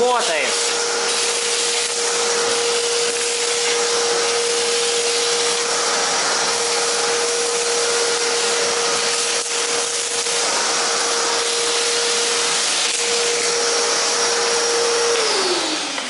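Kärcher MV 3 (WD 3) wet-and-dry vacuum cleaner running steadily with a high hum and a rushing hiss as its hose sucks up debris from the floor. Near the end its motor is switched off and winds down, the hum falling in pitch.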